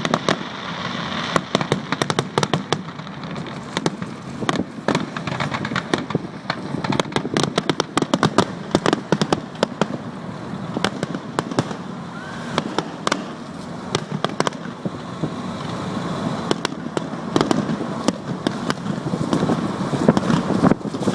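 Fireworks display: a dense, continuous run of bangs and crackling, many reports a second.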